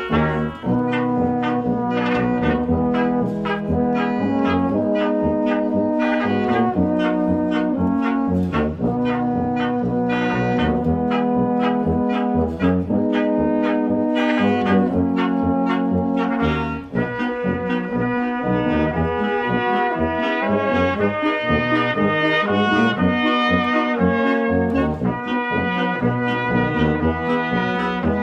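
Instrumental brass band music, with trumpets and trombones playing the melody over a pulsing bass line. There is a brief dip in loudness about two-thirds of the way through.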